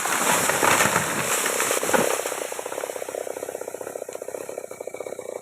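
Wood cracking and snapping in a loud, dense crackle for about two seconds, typical of a big banyan tree's trunk and branches breaking as it comes down after chainsaw cutting. It then drops to a quieter, fast, even rattle.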